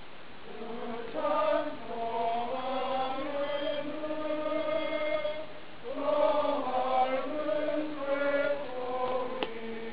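A group of people singing together in slow, held phrases, with a short break about six seconds in. A single sharp click sounds near the end.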